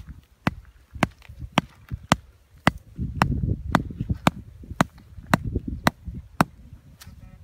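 Hatchet striking the top of a small wooden stake to drive it into the ground, using the back of its head: a steady series of about fourteen sharp wooden knocks, roughly two a second.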